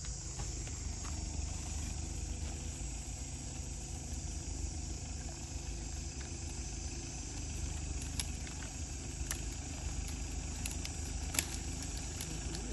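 Outdoor ambience by the water: a steady low rumble under a thin, continuous high insect drone, with a few sharp clicks from about eight seconds in.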